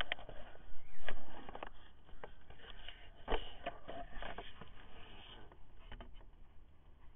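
Handling noise close to the microphone: scattered rustles with irregular light clicks and knocks.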